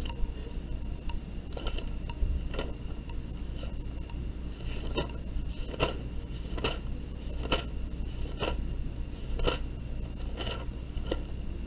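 A run of short, sharp clicks, about one a second and a little irregular, over a steady low hum.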